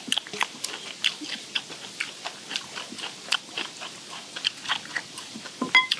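Close-miked chewing and crunching of steamed skate and crisp bean sprouts, in quick irregular crunches. A short high tone sounds near the end.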